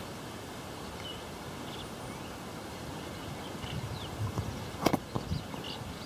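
Open-air ambience with faint short bird chirps, a few soft low thumps and one sharp click about five seconds in.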